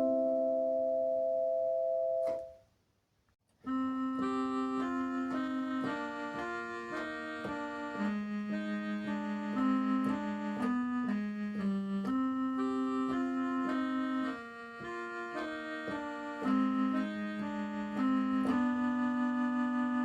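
Background music played on a keyboard: a held chord fades out, a second of silence follows, then a steady melody of single notes and chords.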